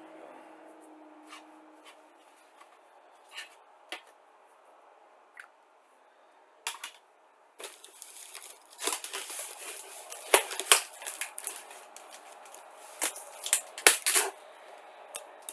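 Cardboard box being opened: packing tape cut and torn, with rustling and scattered clicks and knocks of the cardboard. Sparse at first, busier and louder from about halfway.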